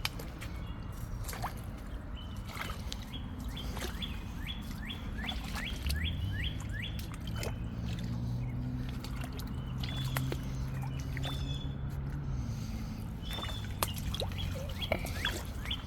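A songbird singing runs of quick down-slurred whistles, several a second, with occasional sharp snaps and clicks underfoot. A low steady drone comes in about six seconds in and fades out about twelve seconds in.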